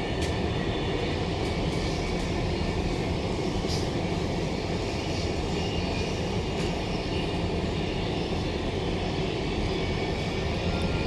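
Steady interior running noise of a Queensland Rail NGR electric multiple unit travelling at speed, with a few faint clicks.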